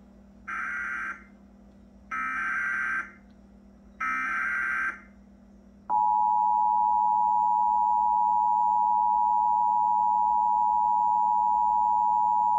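Emergency Alert System header and attention signal: three short bursts of buzzy SAME digital header data, then, about six seconds in, the steady two-tone EAS attention signal starts. This sequence marks the start of an EAS alert, here a flash flood warning.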